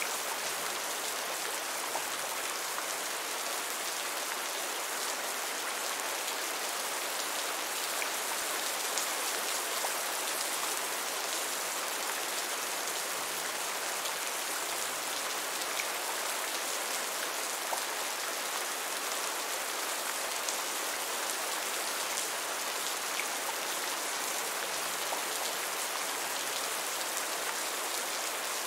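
Heavy rain falling steadily: an even hiss with faint scattered ticks of single drops.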